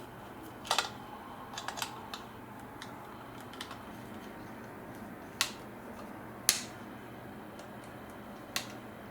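Scattered sharp clicks and taps as the plastic housing and wire connectors of a Dyson V10 vacuum are handled while the connectors are worked through an opening. The loudest two come about five and six and a half seconds in.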